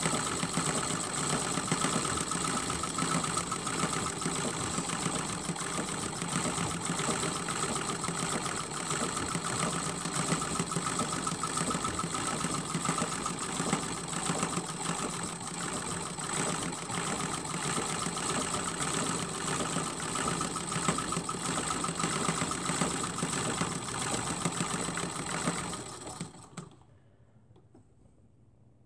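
Sewing machine running steadily as it stitches through a quilt in free-motion quilting; it stops near the end.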